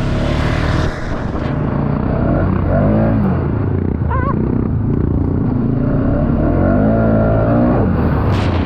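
Four-wheeler (ATV) engine running hard, its revs rising and falling again and again.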